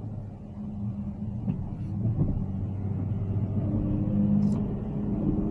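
Steady low road rumble and drone of a Tesla Cybertruck driving, heard from inside the cabin, with no engine note because the truck is electric; it grows a little louder toward the end.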